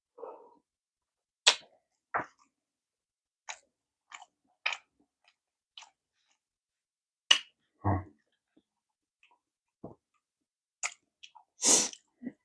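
Close-miked eating sounds: a swallow of drink at the very start, then scattered sharp clicks of chopsticks against a plastic sushi tray and wet mouth clicks, with a louder breathy sound near the end.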